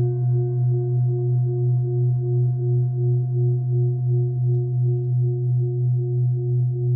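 Full moon singing bowl ringing with a deep, steady hum and higher overtones. Its tone wavers with a quick, even pulse about four times a second.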